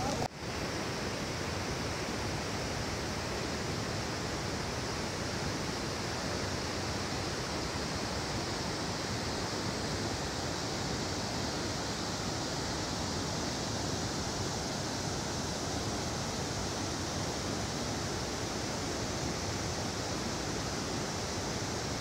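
Fast mountain river rushing over rocks, a steady rush of white water.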